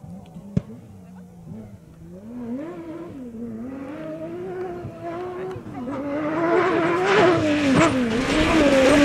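Off-road rally car's engine approaching over dirt, getting steadily louder. Its revs rise and fall repeatedly as the driver works the throttle and gears. A single sharp click about half a second in.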